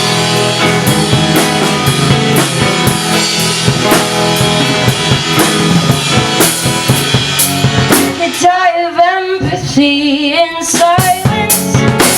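Live two-piece band music: guitar and drum kit playing an instrumental passage. About two-thirds of the way in, the playing thins out and a wavering, pitch-bending melody comes in over lighter drums.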